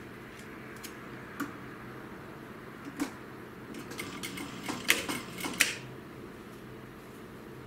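Scattered clicks and taps as synthetic leather and a clear tape strip are handled at an industrial sewing machine, with a quick irregular cluster of sharper clicks in the second half, over a low steady hum.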